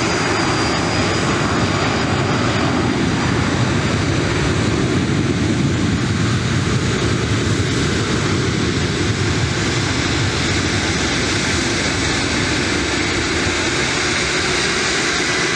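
Twin rear-engined business jet at takeoff power, its turbofans producing a steady, loud jet roar through the takeoff roll and climb-out.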